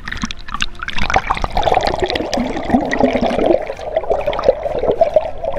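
Water splashing and trickling, a dense run of small splashes and clicks that gets fuller about a second in, typical of a trout-fishing stream.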